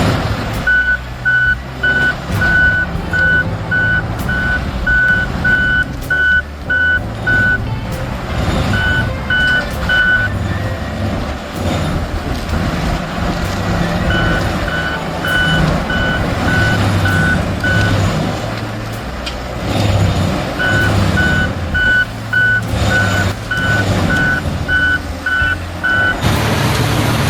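A heavy machine's reversing alarm beeping about two times a second, in several runs with short gaps, over the low running of its engine.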